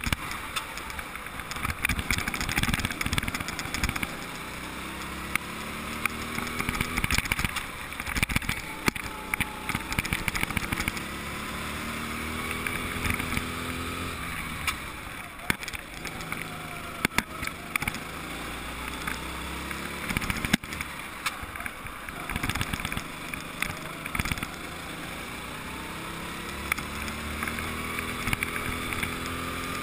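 Go-kart engine heard onboard, its pitch rising as it accelerates and then dropping away, several times over as the kart laps. Frequent knocks and rattles come through over it.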